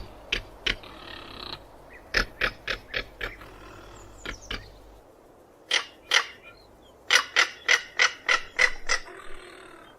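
Crested caracara giving its dry, rattling calls: bursts of sharp clicking notes, the longest run near the end at about five a second, with a few short grating calls in between.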